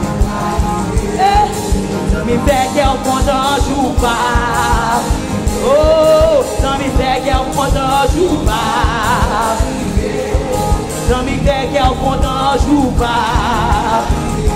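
Live gospel praise music: a woman sings in Haitian Creole with wide vibrato over a band with a steady drum beat.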